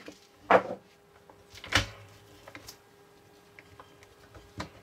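Hard plastic parts of a toy 3D print machine being handled: a few separate knocks and clicks, the loudest about half a second in, as its translucent plastic cover is lifted off and the mold cup is slid out. A faint steady hum lies underneath.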